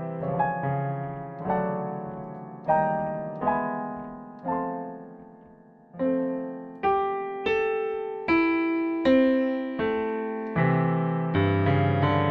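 Solo piano music: a slow, gentle run of single notes and chords, each struck and left to ring and fade before the next, ending on a fuller chord that holds.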